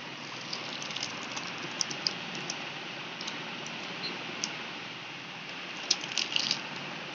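Scattered light clicks and taps of fingers handling a cardboard box, with a quick cluster of taps about six seconds in, over a steady hiss.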